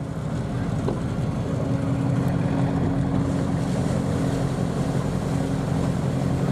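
A ferry under way: a steady, low engine hum over an even rush of wind and water.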